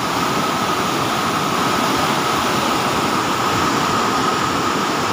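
Loud, steady rush of floodwater pouring through a dam's open gate and churning into white foam below.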